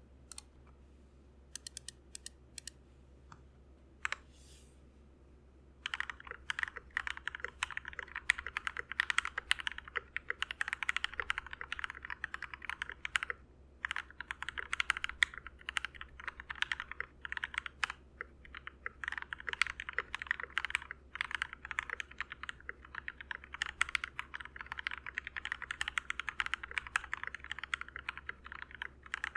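HolyTom TOM980 mechanical keyboard with Gateron Pro Yellow linear switches, a steel plate and OEM-profile pudding keycaps being typed on. A few single keystrokes come first, then fast continuous typing from about six seconds in, broken by a couple of short pauses.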